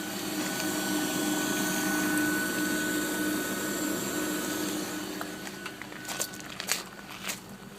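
Audi A4 1.8T turbocharged four-cylinder idling with a steady hum that does not change with engine speed, which the owner suspects is a failing fuel pump. The whirring is louder for the first few seconds and then eases, with a few sharp clicks near the end.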